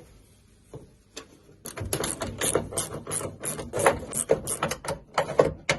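Hand tool working parts out of a classic Volkswagen Beetle door: a quick, irregular run of sharp metallic clicks and rattles starting about a second and a half in.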